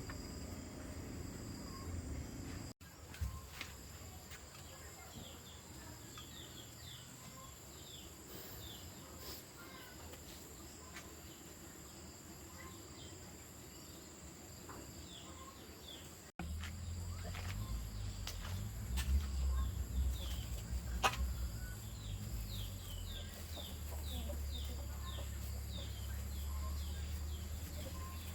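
Outdoor ambience: insects trilling steadily at a high pitch, with runs of short bird chirps. After a cut a little past halfway, a low rumble joins underneath.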